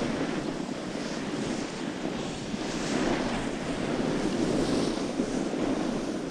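Wind rushing over the camera's microphone during a downhill run, with the hiss of edges sliding over packed snow swelling and fading every second or so.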